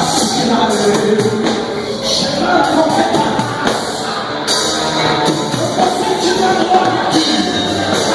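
Live band music with singing, as in church worship.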